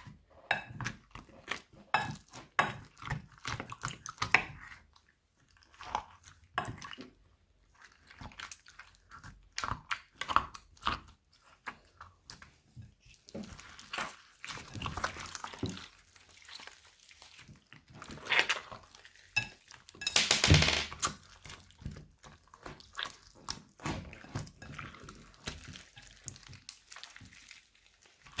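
Slime being squished and kneaded by hand: an irregular run of sticky crackles, pops and squelches, with one longer, louder squelch about twenty seconds in.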